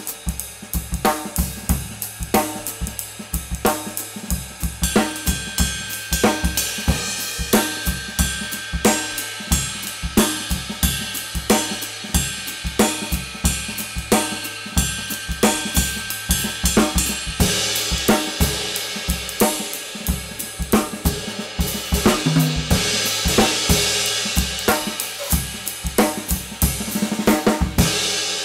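Meinl 20" Byzance Traditional Medium Ride cymbal struck with a 5A wooden drumstick in a steady ride pattern of about two strokes a second. The wash builds and grows brighter past the middle, and the cymbal rings on after the last stroke near the end.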